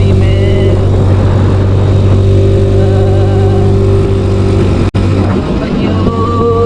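Yamaha Mio Sporty scooter's single-cylinder four-stroke engine running steadily while riding. The hum cuts out for an instant a little before five seconds in and is weaker after it.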